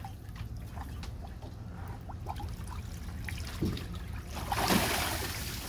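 Water trickling and sloshing as a bear moves about in its water tub, with a louder splash about five seconds in.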